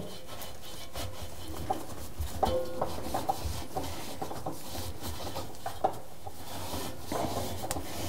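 Sponge scrubbing the rubber door gasket of a front-load washing machine: irregular rubbing and scraping strokes.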